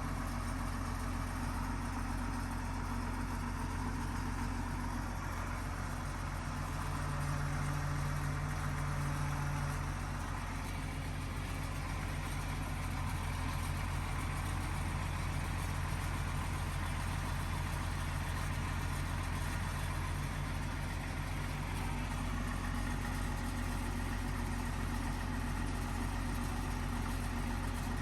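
Bulldozer's diesel engine running steadily at idle, briefly a little louder about seven seconds in.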